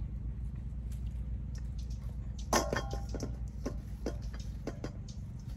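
Small wet clicks and crackles of a balut egg being handled and eaten, starting about halfway through, over a steady low hum.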